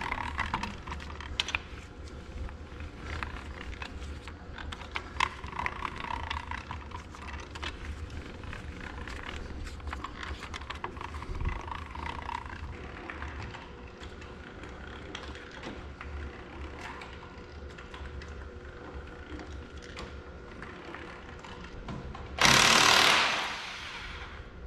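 Hand-cranked jacks being wound down under a tractor's front subframe, with a string of small irregular clicks and knocks from the crank mechanism. Near the end a power tool runs loudly for about a second and a half.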